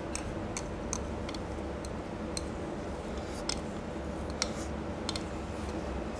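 Eating at a table: wooden chopsticks clicking against a rice bowl about a dozen times, at uneven intervals, over a steady low room hum.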